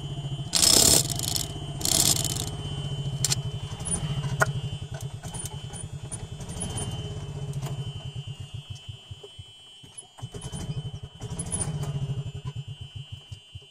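A golf cart's small engine running with a rapid low putter, its level rising and falling and easing off for a moment about nine seconds in before picking up again. Two short, loud bursts of noise come about one and two seconds in.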